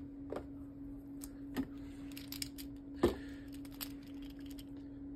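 Light plastic clicks and taps as a small Beyblade top and its string launcher are handled, the sharpest click about three seconds in, over a steady low hum.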